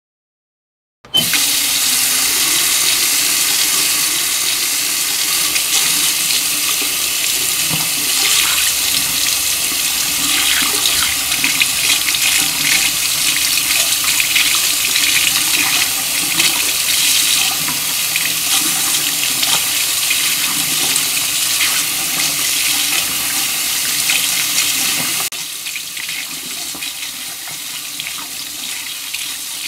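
Bathroom faucet turned on about a second in, water running steadily into the sink with a dense hiss. Near the end it drops to a noticeably quieter level but keeps running.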